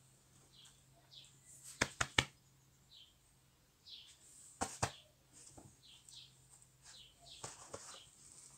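Small birds chirping on and off with short, high chirps. Three sharp clicks come about two seconds in, and two more just before the five-second mark; these are the loudest sounds.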